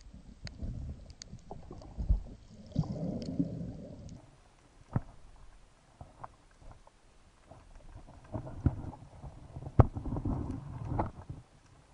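Underwater sound picked up by an action camera in its waterproof housing: irregular low rumbling surges of water movement with scattered sharp clicks.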